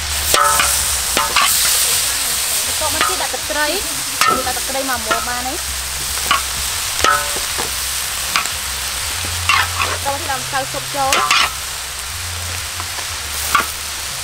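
Metal spatula stirring and tossing corn kernels in a large wok, scraping the metal again and again with short squeaky scrapes, over a steady sizzle of frying.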